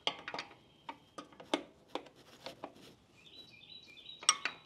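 Metal wrench clinking and clicking against the nylock nut and pivot bolt of a motorcycle's rear suspension linkage as the nut is worked loose: a string of sharp, irregular metallic clicks.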